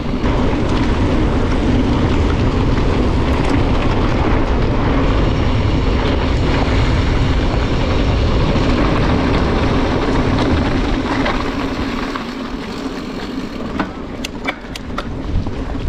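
Wind rushing over an action camera's microphone together with the rumble of mountain bike tyres rolling on a dirt track. The noise eases about twelve seconds in, and a few sharp clicks come near the end.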